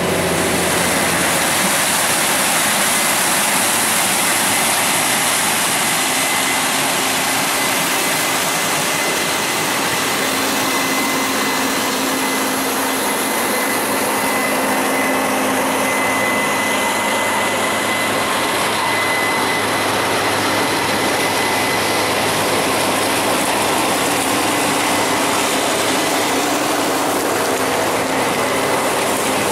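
Heavy farm machinery running steadily at corn harvest: a loud, even noise with a faint high steady whine.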